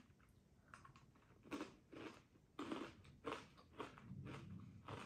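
Close-up chewing of crispy caramel-coated corn puffs: a string of quiet, crackly crunches, roughly one every half second to second.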